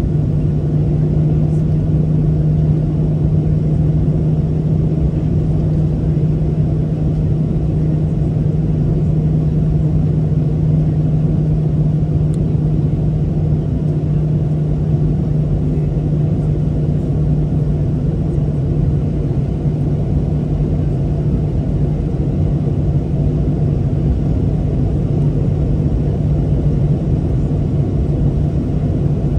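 Boeing 737-800 cabin during taxi: its CFM56-7B turbofan engines run at low thrust, heard through the fuselage as a steady low drone with a constant hum.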